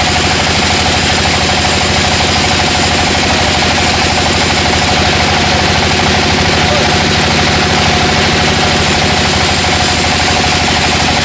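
Sawmill engine running steadily with a fast, even pulse.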